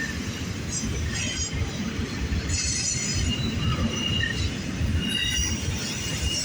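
Cars of a double-stack container train rolling past close by: a steady rumble of wheels on rail, with high, thin wheel squeals coming and going.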